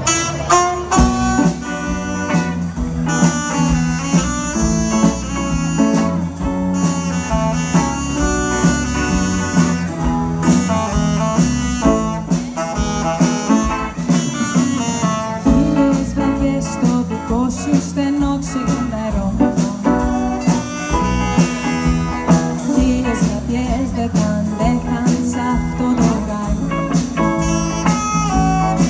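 Live Greek swing played by a small band: an instrumental passage with a steady beat, a walking bass line and guitar under a melody line.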